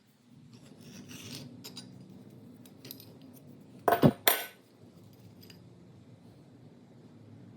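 Metal vise parts being handled on a workbench: light clinks and scrapes, with two sharp metallic clanks about four seconds in.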